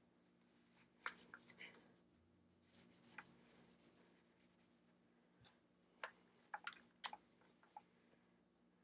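Faint rubbing and small clicks of a cloth wiping baking-soda residue off a steam iron's metal soleplate, in short strokes about a second in, around three seconds, and in a quick run between six and eight seconds.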